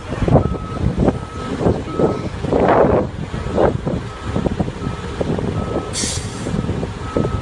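Heavy construction vehicle's diesel engine running, with its reversing alarm beeping steadily at about one beep every 0.7 seconds. A short hiss of air about six seconds in.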